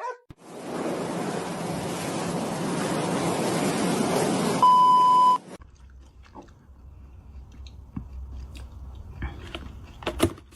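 A steady rushing noise that slowly grows louder for about five seconds. It ends with a loud half-second electronic beep, then gives way to a faint low hum and a few light clicks.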